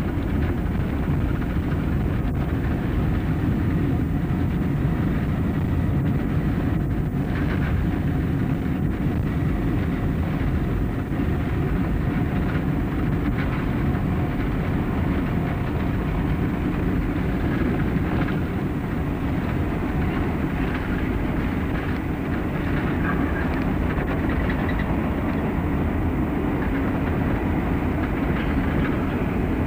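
Jet airliner rolling out on the runway after landing, heard from inside the cabin: a steady rumble from the wheels, engines and airframe, slowly easing as the plane slows.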